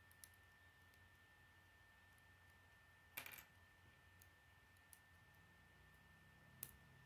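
Near silence with a few faint plastic clicks of K'nex pieces being snapped and fitted together, the loudest a short cluster about three seconds in and a sharp single click near the end.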